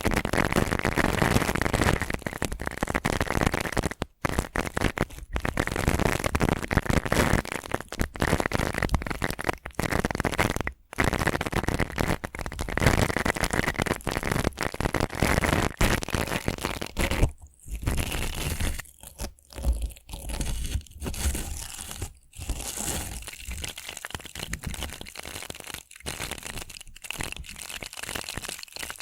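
Stiff brush bristles scratching in dense, continuous strokes, which give way in the second half to separate strokes with short pauses between them.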